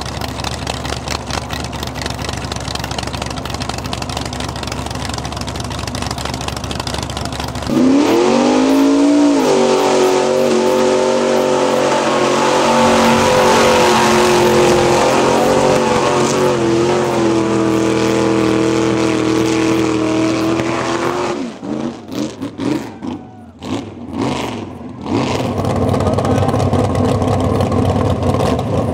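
Mud bog vehicle's engine running through open header pipes, rumbling at first, then revved hard about eight seconds in and held at high revs as it churns through the mud pit. Near twenty-two seconds the throttle cuts on and off, and the engine revs up again near the end.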